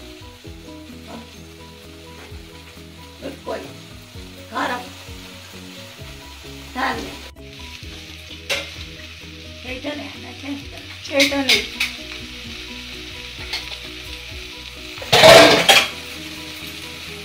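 Onions and dried prawns frying in oil in an aluminium pot, sizzling steadily while a steel spatula stirs and scrapes the pot every second or two. A short, louder burst stands out near the end.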